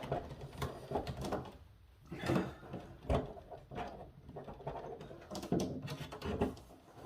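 Hard plastic toy parts being handled and pressed together: irregular knocks, clicks and scraping as a moulded scepter piece is worked onto its peg on the playset.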